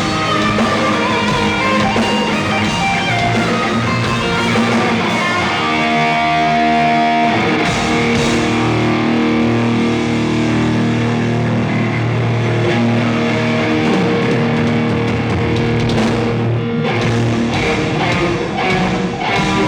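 Loud live instrumental rock played by a band, led by electric guitar with drums, with long held notes through the middle.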